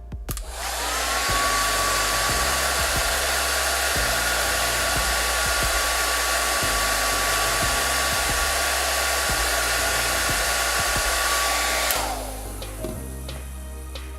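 DU-PLEX DP-650HD hair dryer switched on about half a second in: its fan spins up to a steady whine over a rush of blown air. Near the end it is switched off, and the whine drops in pitch and fades as the fan winds down.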